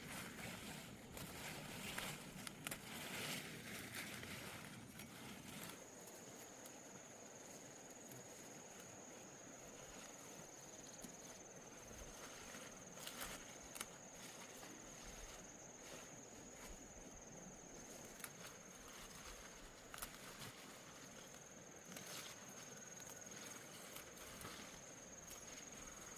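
Faint outdoor ambience: a steady, thin, high-pitched insect trill sets in about six seconds in, over light rustling and scattered soft clicks.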